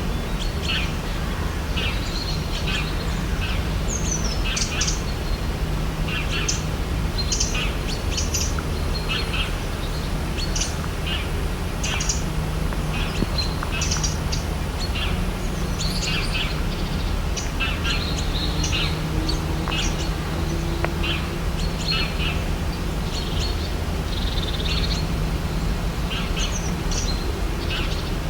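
Tropical birds chirping: many short, quick calls overlapping throughout, over a steady low background rumble.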